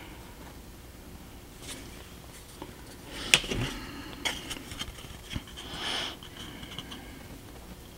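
Light taps and clicks of small painted model-building wall panels being put down and picked up on a cutting mat, starting about three seconds in, with a short rustle about six seconds in.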